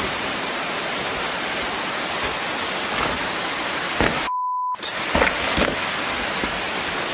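Steady rushing of a waterfall. About four seconds in, it cuts out for half a second with a short steady beep, then comes back with a few sharp knocks.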